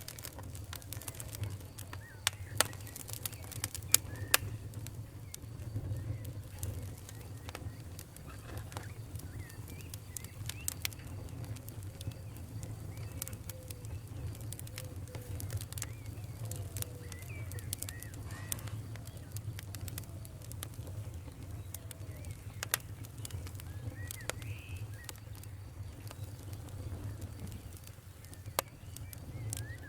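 Wood fire crackling in a fireplace, with a steady low rumble and frequent sharp pops, a few louder ones about three and four seconds in. Faint short squeaky whistles come and go among the crackles.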